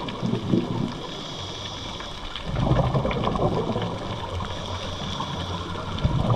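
Scuba diver's breathing through a regulator heard underwater: a rush of exhaled bubbles about two and a half seconds in, lasting over a second, and another starting near the end, with a quieter hiss between.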